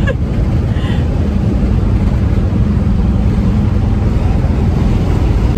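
Volkswagen Kombi van on the move, its engine running steadily with road and wind noise, heard inside the cab.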